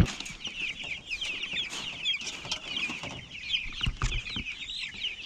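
A brood of baby turkeys and chicks peeping: many short, high, falling cheeps overlapping in a dense, continuous chorus.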